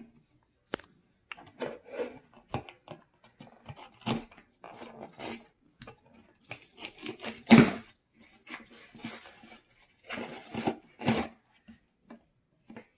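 A box and its packaging being handled and opened: irregular rustling, scraping and clicks, with one louder sharp crack about halfway through.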